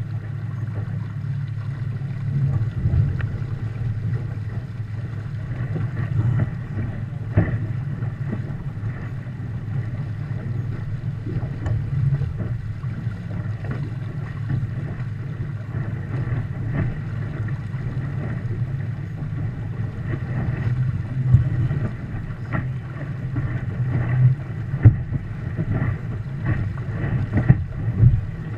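Wind buffeting the microphone and water rushing along the hull of a Viper sailboat under way in chop, a steady low rumble with frequent sharp slaps and knocks, several louder ones near the end.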